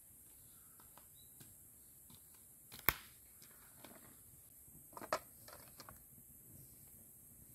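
A woven tray of onions and a plate set down on dirt ground, giving a short cluster of knocks about five seconds in, with a single sharp click a couple of seconds earlier and faint clicks of handling and steps otherwise.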